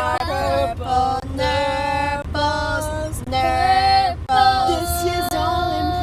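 Young voices singing a melody in long held notes, with short breaks between the notes and a steady low hum underneath.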